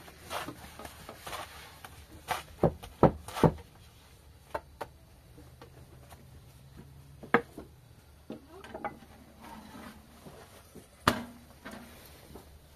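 Irregular knocks and clatters of objects being handled: a cluster of four sharp strikes between about two and three and a half seconds in, then single knocks about seven and eleven seconds in.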